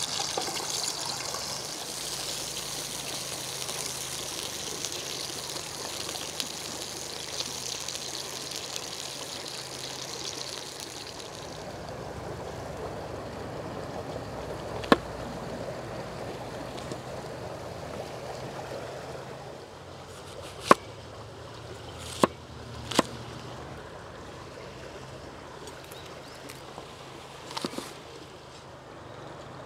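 Pork belly sizzling in hot oil in a pan; the hiss stops about eleven seconds in. After that comes a chef's knife cutting an onion and an apple on a wooden cutting board, with a handful of sharp knocks of the blade on the board.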